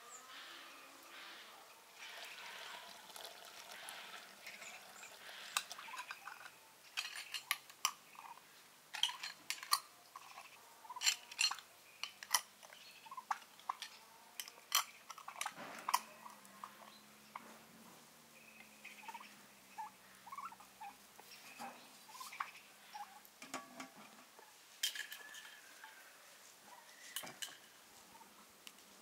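Glass jars and metal twist-off lids clinking and clicking as the lids are set on jars packed in an aluminium pot: a run of sharp taps and clinks, busiest in the middle and again near the end.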